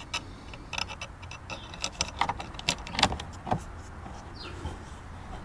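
Irregular light clicks and scrapes of a front license-plate bracket and its screws being fitted by hand against a car's plastic front grille.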